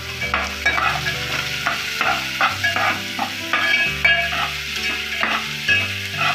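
A metal slotted spoon stirring and scraping chopped onions, curry leaves and ginger frying in oil in an aluminium pot: a steady sizzle with repeated scraping strokes against the pot.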